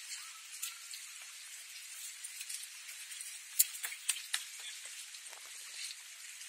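Harbour water lapping and slapping against the wharf: a steady fizzing hiss with scattered crackles and a few sharper slaps about halfway through.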